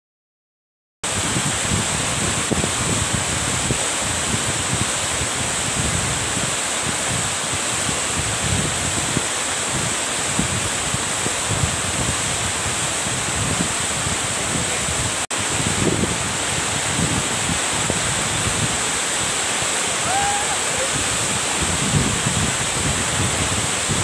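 Waterfall water rushing and splashing down a rock cascade, a loud, steady rush close by that starts suddenly about a second in, with a brief break partway through.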